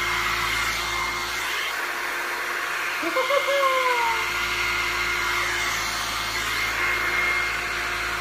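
Small handheld hair dryer running steadily as it dries a dog's fur, an even blowing hum with a thin steady whistle in it. About three seconds in, a brief whine falls in pitch over it.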